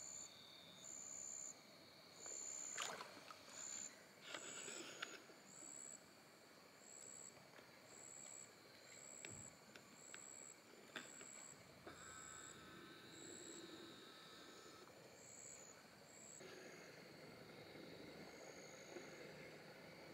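Faint outdoor quiet near still water: a few small splashes and knocks as a long-handled net is worked through the shallows, the loudest near the start. Behind them an insect chirps steadily, about once every two-thirds of a second, and stops near the end.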